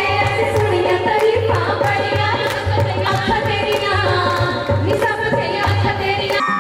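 A Punjabi folk song sung by women's voices over a steady drum beat, with clapping.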